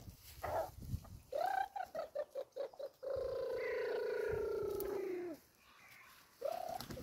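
Chickens clucking: a quick run of short clucks, then one long, steady drawn-out call lasting over two seconds, and another short cluck near the end.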